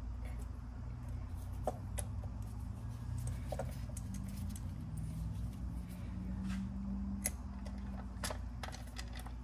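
Scattered light clicks and knocks of an ignition coil being pushed back into place on a BMW B58 engine, over a steady low hum.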